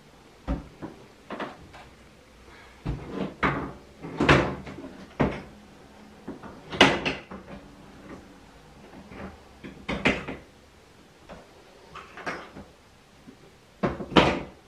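Irregular clunks, knocks and scrapes of a shelf panel being handled and seated on a metal snake rack frame during assembly. There are a dozen or so separate bangs, the loudest about four, seven and ten seconds in and again near the end.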